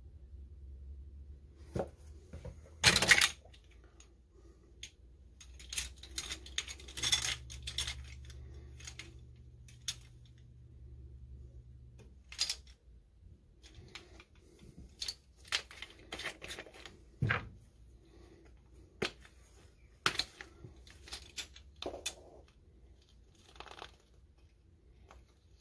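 Plastic measuring spoons on a ring clacking and rattling against each other as they are sorted, then a small spice jar being opened and handled: irregular light clicks and clatters, the loudest about three seconds in.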